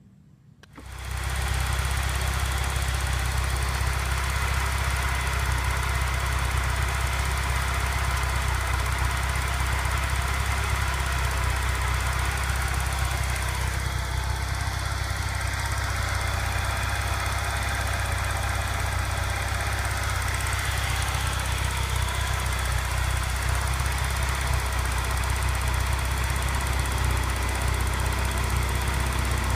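Peugeot 406's engine running at a steady idle, coming in abruptly about a second in. It is being run to circulate radiator flush fluid and bring the cooling system up to operating temperature.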